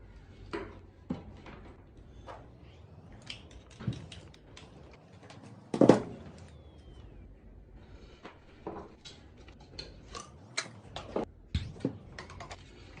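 Irregular knocks, clicks and clatters of hard objects being handled, with one loud bang about six seconds in.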